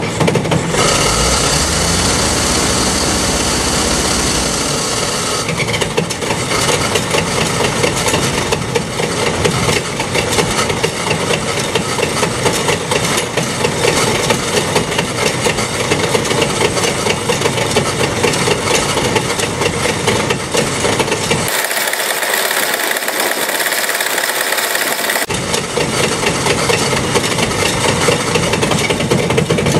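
Old front-end loader tractor's engine started and running with the starter motor stuck engaged, cranking against the engine, a horrible noise; the owner puts it down to the key switch probably sticking in the crank position. Loud and steady, with a heavier rumble in the first few seconds, and about two-thirds through the low rumble drops out for a few seconds under a hiss.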